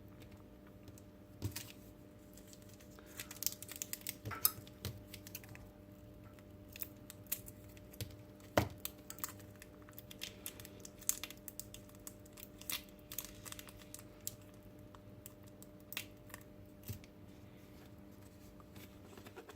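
Plastic robot-kit parts (the Robi head and ear pieces) being handled and pressed together: scattered light clicks and scrapes, with one sharper click near the middle. A faint steady hum sits underneath.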